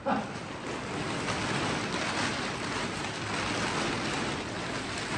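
Blue polyethylene tarp rustling and crinkling steadily as it is dragged and pulled off a machine.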